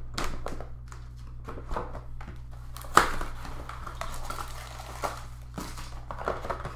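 Sports-card boxes and packs being handled: irregular crinkling and rustling of wrappers and packaging with scattered clicks, and one sharp knock about three seconds in.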